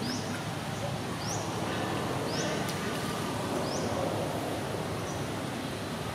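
A bird repeating a short, high, rising chirp about once a second over a steady background hiss.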